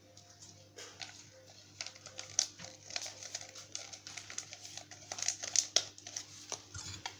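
A small paper sachet being torn open and crinkled, and its powder tipped into a stainless steel saucepan, with irregular light clicks and taps that come thicker toward the end.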